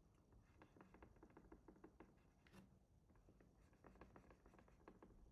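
Near silence with faint, irregular ticks and light scratches of a pen stylus on a drawing tablet as short strokes are drawn.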